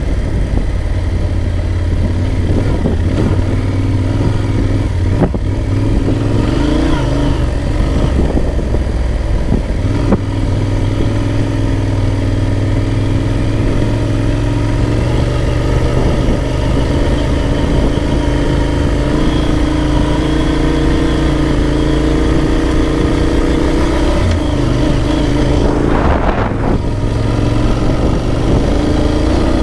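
Big adventure motorcycle engine running steadily while riding, with rushing wind noise on the microphone. A brief louder rush of noise comes near the end.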